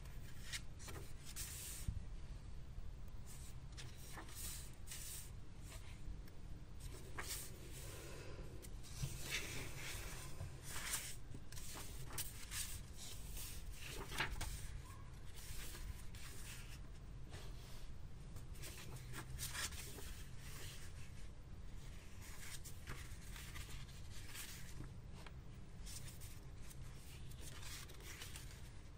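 Paper pages of a hardcover sketchbook being turned and riffled by hand: an irregular run of soft rustles and flicks, over a steady low background hum.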